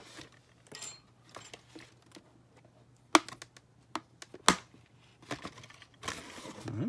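Hands handling a doll's cardboard and plastic box: scattered small clicks and taps, two sharp snaps a little over a second apart midway, then a short rustle of packaging near the end.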